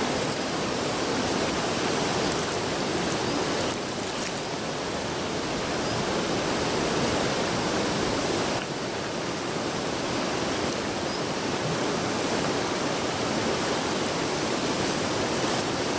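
A river in flood, swollen by heavy rain: a steady rush of fast, turbulent water.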